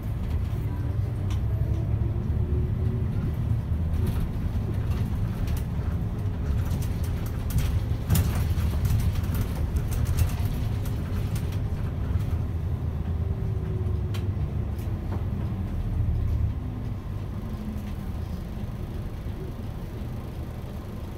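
Diesel route bus driving, heard from inside the cabin: a steady low rumble with a whine that rises in pitch as it picks up speed near the start and falls as it slows later. There are scattered clicks and rattles in the middle, and the engine eases off about sixteen seconds in.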